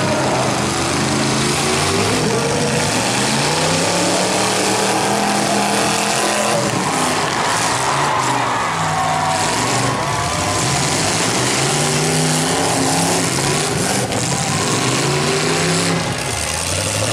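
Demolition derby cars' engines revving hard, several at once, their pitch climbing and falling again and again as they accelerate across the arena.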